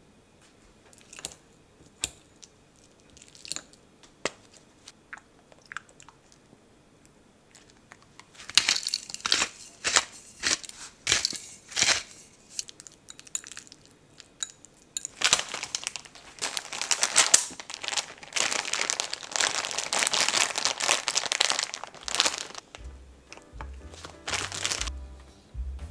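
Metal fork mashing avocado in a glass bowl, scraping and tapping the glass in separate strokes, then stirring it into a steady quick scraping for several seconds. Faint light clicks come before the mashing starts.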